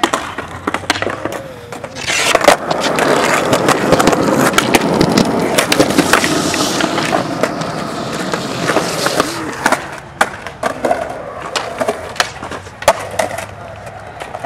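Skateboard wheels rolling on smooth concrete, loud from about two seconds in and easing off about ten seconds in. Sharp clacks of the board popping and landing come through it.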